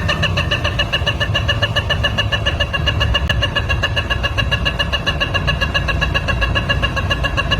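Car engine running with a high-pitched, rapidly pulsing chirping noise over it, described as "rooster-like", which the owner takes for a knock in the engine.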